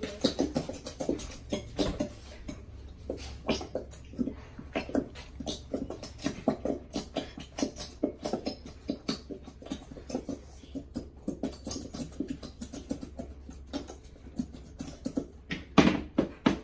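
Elmer's glue being squeezed out of plastic squeeze bottles into bowls: many short, irregular squelches, several a second, with a louder pair near the end.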